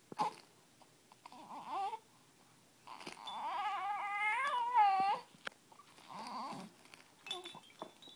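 Young infant cooing and squealing: a short rising coo about a second and a half in, then a long high squeal that wavers up and down in pitch from about three to five seconds, and a shorter coo after six seconds. There is a sharp knock right at the start.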